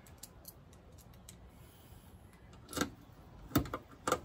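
Small metal hardware being handled: faint ticks, then three sharper clicks and clinks in the second half, the loudest a little past the middle.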